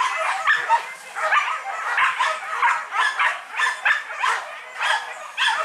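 A pack of hunting dogs barking and yelping over one another, several calls a second without a break.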